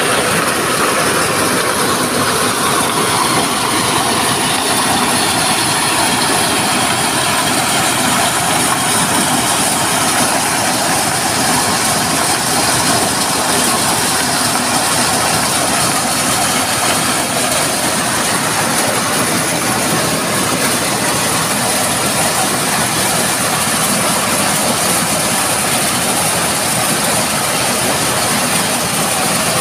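Corn sheller with a blower running: a loud, steady machine noise that holds unchanged throughout.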